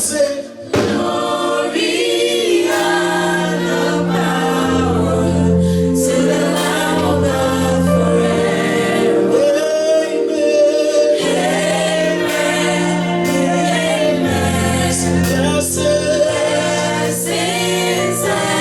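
Gospel worship song: a group of voices singing together over band accompaniment with sustained bass notes.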